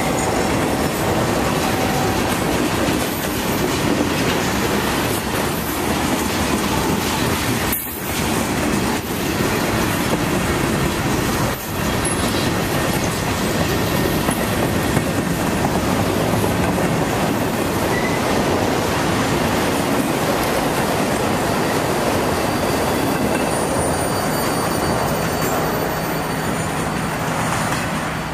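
Freight cars rolling past close by: a steady rumble and clatter of steel wheels on the rails. It eases slightly as the last car goes by at the end.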